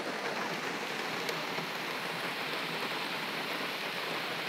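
Summer downpour falling steadily, an even hiss of rain heard from inside a car through its open door.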